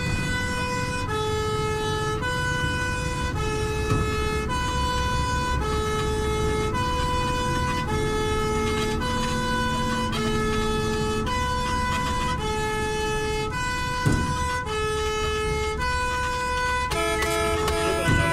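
Fire engine's two-tone siren alternating between a high and a low note, each held for about a second, over a low engine rumble. Near the end another pitched sound joins in.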